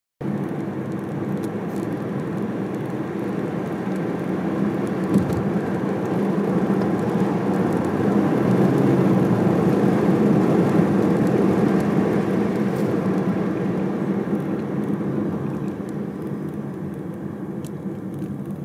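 Car driving along a road, with steady engine and tyre noise heard from inside the cabin. It grows louder toward the middle and eases off near the end.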